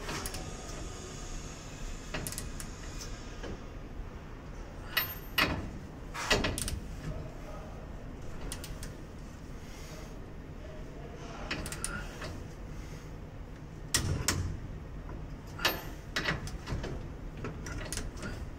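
Socket wrench tightening an M12 bolt on an aluminium busbar clamp connector, working hard against it: scattered sharp metallic clicks and knocks, some in small clusters, over a steady low hum.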